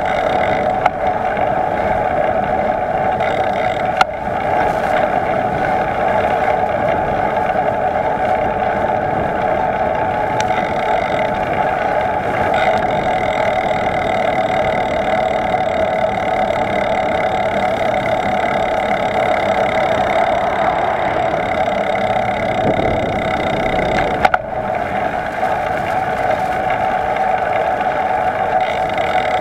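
Steady rushing road and wind noise of a bicycle being ridden at speed, heard from a camera mounted on the bike, with two sharp knocks from bumps, one about four seconds in and one about three-quarters of the way through.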